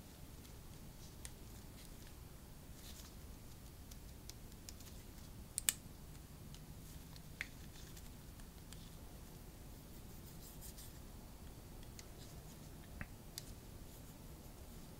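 Hands handling an action figure and its packaging: faint rustling and scratching with scattered small clicks and taps, the sharpest click about five and a half seconds in.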